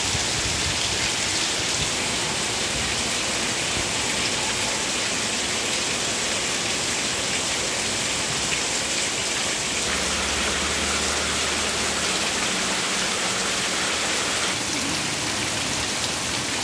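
Heavy monsoon rain pouring down steadily, a dense, even hiss of drops on foliage and standing water.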